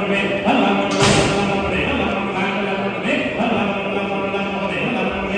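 Cattle auctioneer calling the bids in a fast sing-song chant, held mostly on one pitch and breaking off briefly every second or so. A sharp clatter sounds about a second in.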